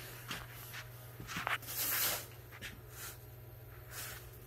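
Footsteps and rustling handling noise as someone walks across a small room, with a few soft knocks, over a steady low hum.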